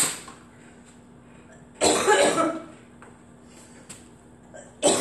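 A short sharp sound right at the start, then a woman coughing hard twice, about two seconds in and again near the end. She is winded and short of breath from the exercise.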